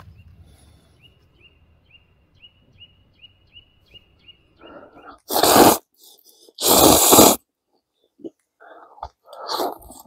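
A man eating spicy instant noodles sneezes twice, two loud explosive bursts about a second apart with a short intake of breath just before. Earlier a small bird chirps faintly, about three short chirps a second.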